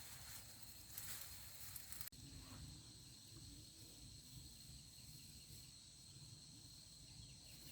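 Faint, steady high-pitched trill of field insects such as crickets. For about the first two seconds it is mixed with a rustling noise that stops abruptly.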